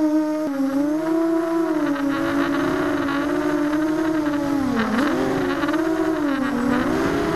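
Brushless motors and propellers of a ZMR250 racing quadcopter whining, heard from a camera on board. The pitch rises and falls as the throttle changes, with a dip about five seconds in before it climbs again.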